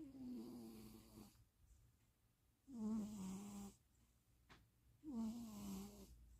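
Domestic cat snoring in its sleep: three snores about two and a half seconds apart, each a low tone lasting about a second that dips in pitch as it starts. A faint click comes between the second and third snore.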